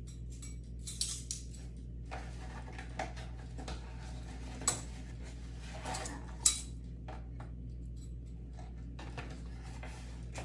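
Metal measuring spoons clinking and scraping as baking soda is scooped from its cardboard box, with two sharp metal clinks midway, the second the loudest, over a steady low hum.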